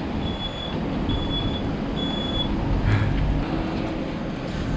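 Delivery van's engine running with a low rumble while its reversing beeper sounds a series of short high beeps that stop about two and a half seconds in, as the van tries to back out of snow.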